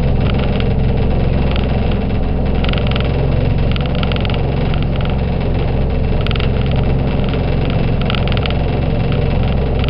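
Motorboat engine running steadily under way, with a higher hiss that swells and fades every second or so.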